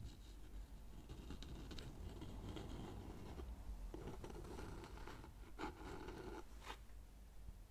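Close-miked fingernails scratching and rubbing on a small wooden box, with a few sharp clicks or taps near the end.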